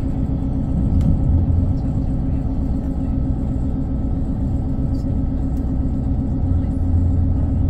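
Diesel multiple-unit train running, a steady low rumble with a faint steady hum above it; the rumble swells briefly about a second in and again near the end.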